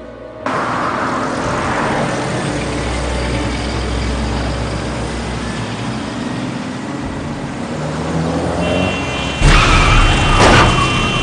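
A motor vehicle running, a steady rumble with road noise. About nine seconds in, a louder, sudden burst of noise comes in.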